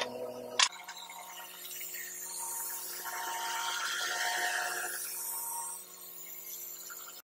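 Shanding SD25U mini excavator running, its engine a steady hum under a whining hiss that swells through the middle and falls away near six seconds, then stops abruptly. A single sharp clank sounds just over half a second in.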